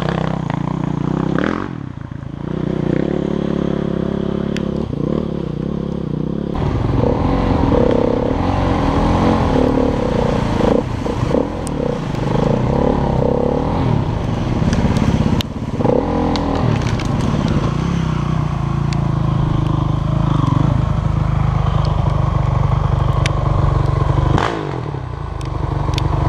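Off-road motorcycle-type engine running and revving up and down as it rides a muddy trail, with scraping and clattering from mud, water and debris hitting the machine.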